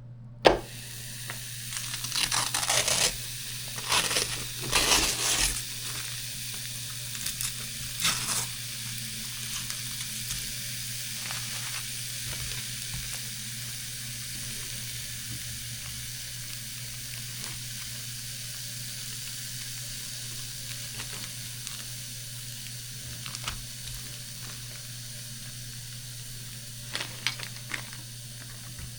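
Frozen chicken-and-lamb patty sizzling steadily on a hot George Foreman electric grill plate. It starts just after the opening, with several louder scraping knocks in the first eight seconds or so as the patty is handled.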